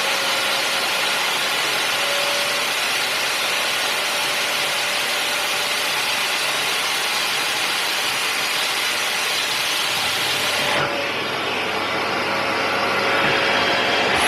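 Kärcher VC 2 vacuum cleaner running steadily: a constant rush of air with a thin motor whine. About eleven seconds in, the sound suddenly turns duller.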